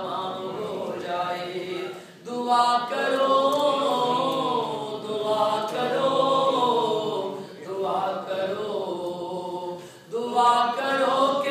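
Male voices chanting a devotional Urdu recitation, melismatic and unaccompanied, in long gliding phrases with short breaks between them.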